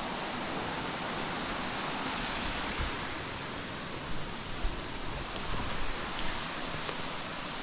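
Waterfall running full after rain: a steady rush of falling water. From about four seconds in, irregular low bumps break through, like wind buffeting the microphone.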